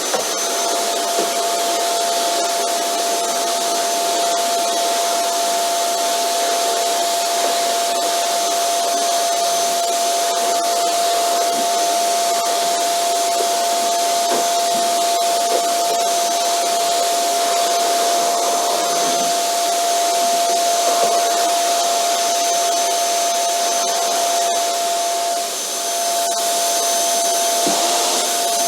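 Vacuum cleaner running steadily: a high-pitched motor whine over a loud rush of air, with a few faint clicks and a brief dip in level near the end.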